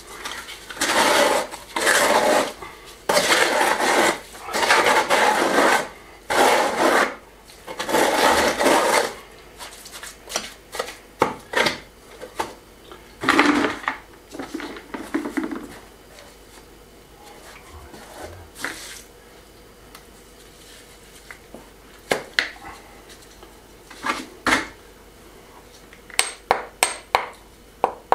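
A trowel working mortar in a metal bucket: a run of second-long scraping strokes, then scattered scrapes and clinks of steel on the bucket. Near the end comes a quick run of light taps, a hammer knocking stones into the mortar.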